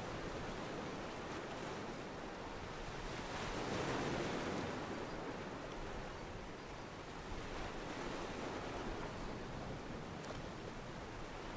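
Sea water washing and lapping against a pier, a steady wash of small waves that swells up about four seconds in and again near eight seconds.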